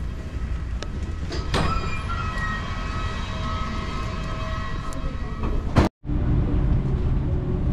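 Steady low mechanical rumble with a faint high whine, from machinery and ventilation in an airport boarding corridor, with a few light clicks. It drops out abruptly about six seconds in, then a similar steady hum from an airliner cabin's air system continues.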